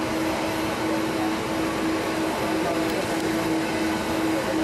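Airliner's jet engines running, a steady rushing noise with a constant hum underneath.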